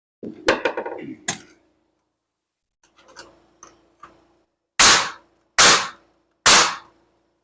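Nails being driven into wood framing: a clatter and a sharp bang near the start, a few light knocks, then three loud sharp bangs a little under a second apart, each with a short ring, over a faint steady hum.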